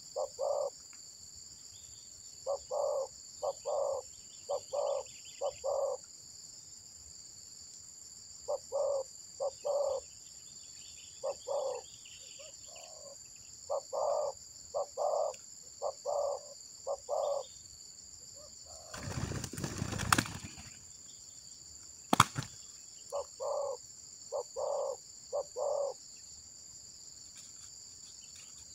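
Spotted dove cooing in repeated phrases of three or four short, low notes, over a steady high insect drone. About two-thirds of the way through comes a brief burst of rustling noise, then a single sharp click a couple of seconds later.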